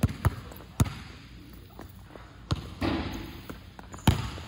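Basketball being dribbled on an indoor court floor: a handful of sharp bounces at uneven intervals, the loudest just after four seconds in. A short rustling noise comes about three seconds in.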